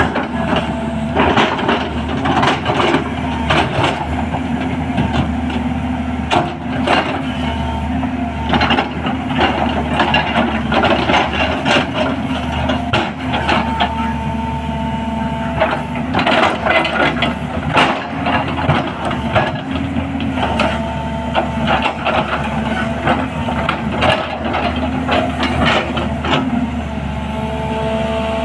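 A 210LC-class hydraulic excavator's diesel engine running steadily, with a whine that rises in and drops out several times as the hydraulics are worked, over frequent knocks and rattles.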